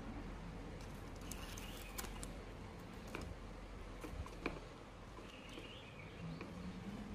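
Quiet handling noise from a small model boat of paper sails, sticks and a plastic cup being turned over by hand on a wooden table: a few light clicks and taps. Faint high chirps come twice, briefly.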